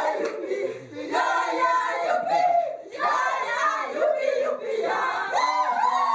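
A group of people singing and shouting together in unison, loud, in phrases that break off about every two seconds.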